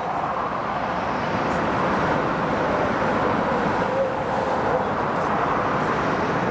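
Steady din of road traffic crossing a city bridge, even and unbroken with no single vehicle standing out.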